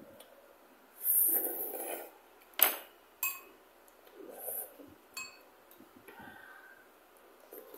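Eating curry instant noodles: a noisy slurp about a second in, then a metal spoon clinking sharply against the bowl a few times, with softer chewing and spoon noises between.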